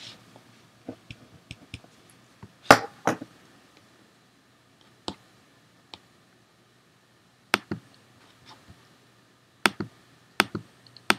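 Sparse clicks and taps from a computer mouse and keyboard: a louder pair of knocks about three seconds in, then single clicks every second or two.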